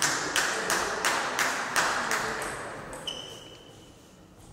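Spectators clapping in unison, about three claps a second, dying away after about two seconds. A thin high tone sounds briefly near the end.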